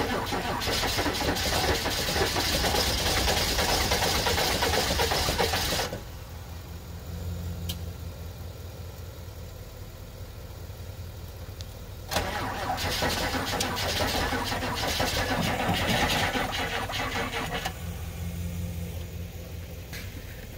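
Chevrolet dump truck's engine being cranked on a jump start, two long tries of about six seconds each that cut off suddenly without the engine catching. Between the tries a quieter engine idles steadily.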